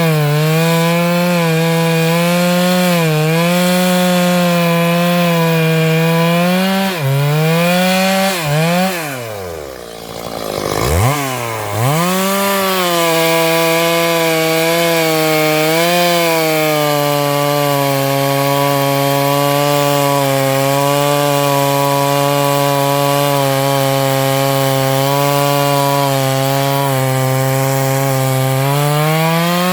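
Stihl MS 382 two-stroke chainsaw cutting sengon wood at high revs, its pitch dipping under load. About nine seconds in the revs fall almost to idle and then climb back. Later it settles a little lower as it bogs in the cut and picks up again near the end.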